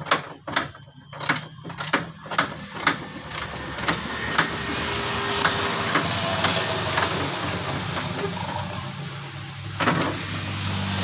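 Ratchet wrench working a car radiator's mounting bolt: a run of sharp metallic clicks, two or three a second, over the first few seconds, then only occasional clicks over a steady hiss.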